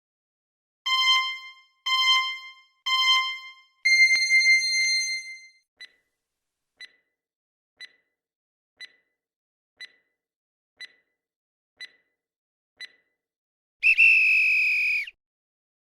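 Quiz answer-timer sound effect: three short electronic beeps a second apart and a longer, higher beep, then a faint tick once a second eight times, ending with a loud buzzer-like alarm tone about a second long that signals time is up.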